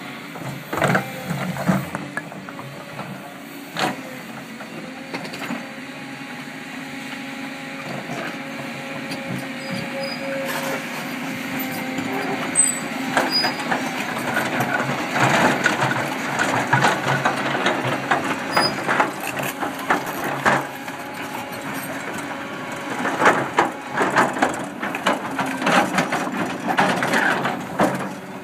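A 35-tonne Volvo tracked excavator's diesel engine running under working load, with repeated knocks, scrapes and rattles of its steel bucket and tracks against stones and gravel.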